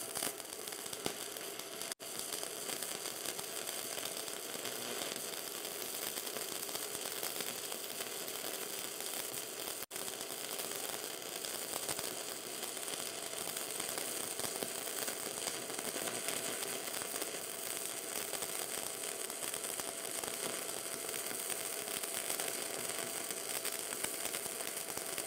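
Stick-welding arc from a 4 mm electrode on a WR0-250 welder, crackling steadily as the rod melts a bead into a steel plate.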